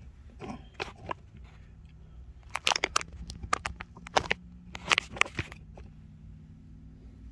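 Sharp metallic clicks and knocks from a camshaft and dial-indicator setup being handled while its runout is checked, loudest in two bunches around the middle, over a low steady hum.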